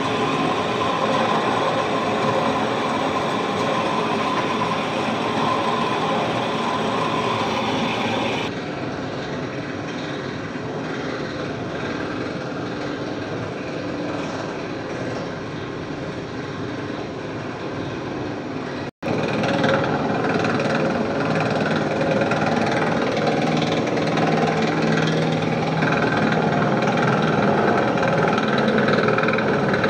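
Electric dough mixer running steadily, its hook turning through dry flour in a stainless steel bowl. The running noise turns quieter and duller about eight seconds in, then drops out for an instant and comes back.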